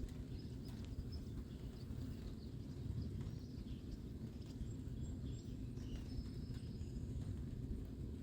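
Wind gusting and buffeting the microphone as a continuous low rumble, with faint bird chirps.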